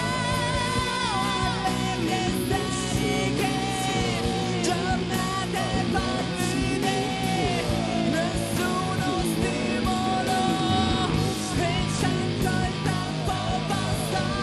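Rock band playing live: electric guitar and drums, with a male singer singing into a microphone.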